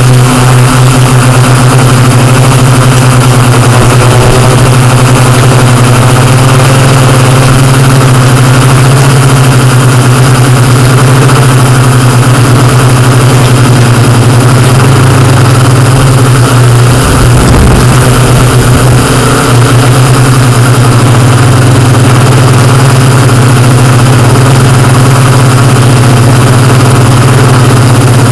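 Yuneec Q500 quadcopter's motors and propellers running in flight, a loud steady hum picked up close by the onboard camera. About 17 seconds in, a low rumble breaks in and the hum wavers for a couple of seconds.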